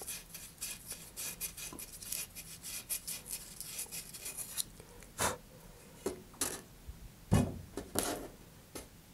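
Sandpaper wrapped on a wood dowel rasping against the inside of a small engine-mount ring, sanding off the ring's inner lip. It starts as quick scratchy strokes, then gives way to a handful of slower, louder strokes in the second half.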